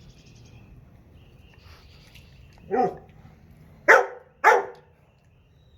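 A dog barking three times: one shorter bark about three seconds in, then two sharp barks about half a second apart. It is a dog protesting at being kept from the food.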